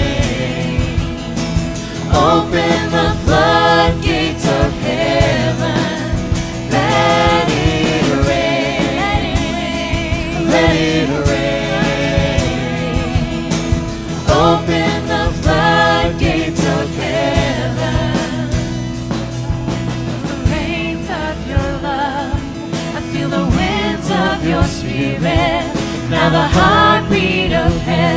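Live worship band with singers performing a contemporary worship song: sung melody and group vocals over sustained bass and keyboard tones and a steady drum beat.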